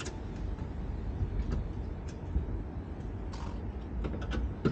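Scattered short clicks and light knocks of fittings being worked by hand while a motorcycle's front wheel is secured on a trailer, over a steady low rumble.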